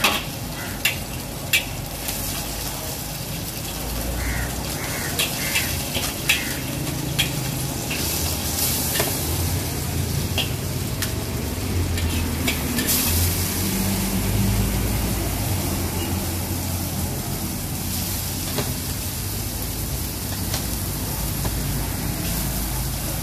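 Prawns frying and sizzling in hot oil in a wok while a metal wok spatula stirs and scrapes, with sharp clanks of the spatula against the wok several times in the first eight seconds or so, over a steady hiss.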